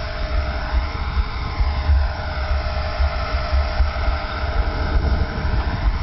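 HK 450 electric RC helicopter flying at a distance, its rotor and motor giving a steady whine, with wind buffeting the microphone in low gusting rumbles.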